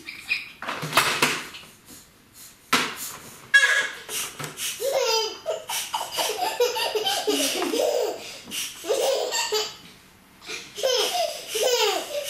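A child laughing in long, repeated fits of giggles, with a short pause near the end before the laughter starts again.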